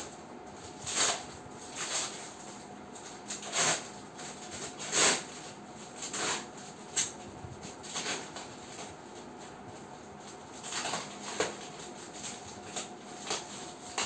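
Clear plastic stretch film wrapped around a cardboard box crinkling and rustling under hands in short, irregular bursts.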